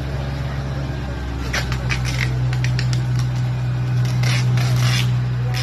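Diesel multiple unit engines running with a steady low drone. Scattered short scrapes and clicks sit on top of it between about one and a half and five seconds in.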